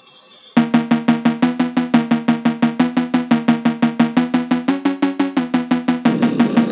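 Background music begins about half a second in: a fast, even run of short repeated pitched notes, about six a second.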